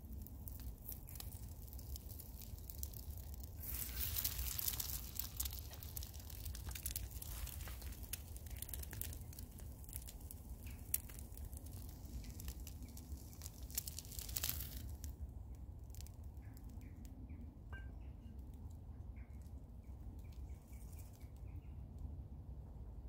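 An egg sizzling in a small frying pan over a wood-burning camp stove, with the wood fire crackling. The sizzle stops about fifteen seconds in, leaving the fire's crackles and small birds chirping.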